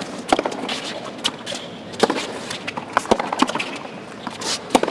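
Tennis rally on a hard court: racquets striking the ball back and forth, a sharp pop about once a second, over a low background murmur.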